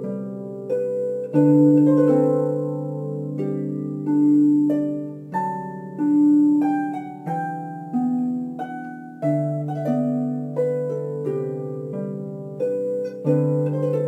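Solo harp music: plucked melody notes over deeper bass notes, each note starting sharply and ringing away.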